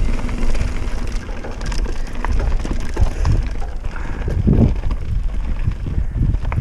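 Hardtail mountain bike rolling fast over a loose gravel track: tyre noise on the stones and the bike rattling over small bumps, with heavy wind noise on the microphone.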